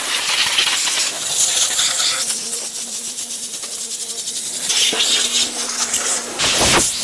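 A pressurised cleaning jet hissing steadily while the dirty front of the car is cleaned, louder at the start and again near the end, with a faint steady hum joining for a few seconds in the middle.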